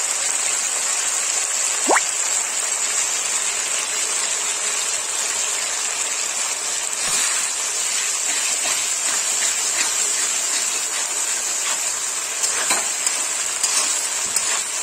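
Diced paneer, onion and green chilli sizzling steadily in oil in a black kadai, with a metal spatula now and then scraping and clicking against the pan, more often near the end. A brief rising squeak sounds about two seconds in.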